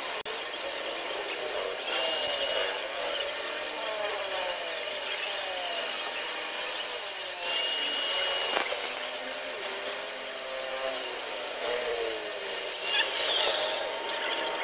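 Angle grinder cutting into the steel lock collar of an axle bearing on an axle shaft held in a vise. The pitch wavers as the disc is pressed into the metal; near the end it is switched off and winds down.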